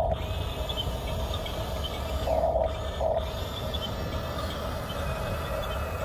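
Huina remote-control toy bulldozer's small electric drive motors and gearboxes whirring steadily as it crawls over sand, swelling briefly twice around the middle.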